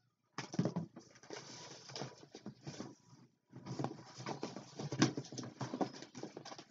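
Rummaging in a cardboard shipping box: packaging rustling with small knocks, in two stretches with a short pause about three seconds in.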